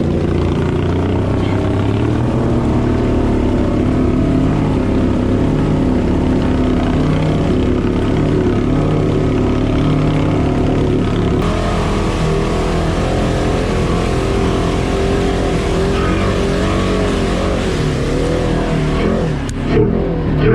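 Polaris Ranger side-by-side's engine running steadily under way, its pitch wavering up and down in the last few seconds.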